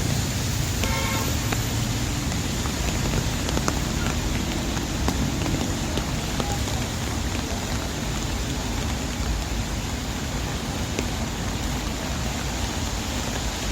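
Steady rain and traffic on a busy city street: an even hiss of rain with the low rumble of passing vehicles and scattered light ticks.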